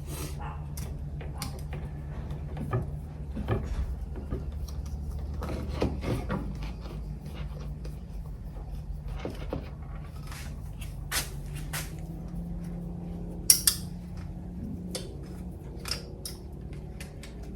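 Scattered clicks and light knocks of hand tools and small parts being handled during fitting work, over a steady low hum. One sharper click comes about 13 seconds in.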